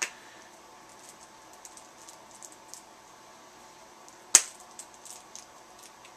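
Small clicks and taps of a toy and its plastic packaging being handled, with a sharp click at the start and one loud snap about four seconds in.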